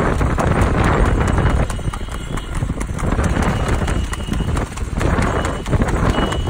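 A horse's hooves striking asphalt in a quick, regular clip-clop as it pulls a two-wheeled racing cart at speed, over a steady rushing road noise.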